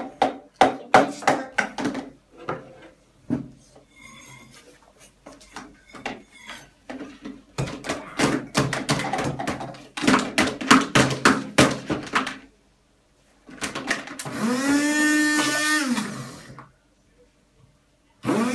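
A run of sharp knocks and taps as the beaker and hand blender are handled. Then a hand (immersion) blender runs for about three seconds, blending a banana, kefir and oat smoothie, and winds down with a falling pitch. It starts again at the very end.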